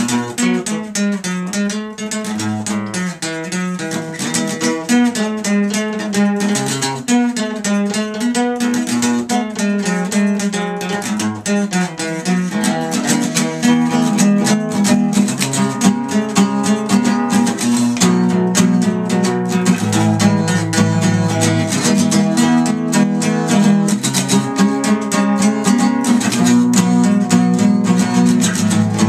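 Acoustic guitar playing an instrumental passage of plucked and strummed notes, getting a little louder about halfway through.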